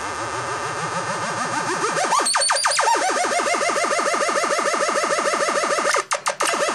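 Homemade breadboard oscillator playing through a loudspeaker: an electronic tone whose pitch wobbles up and down in a steady warble, driven by a low-frequency sine oscillator. About two seconds in the pitch climbs and the wobble speeds up to about eight swings a second, and about six seconds in the sound breaks into a few quick crackling dropouts.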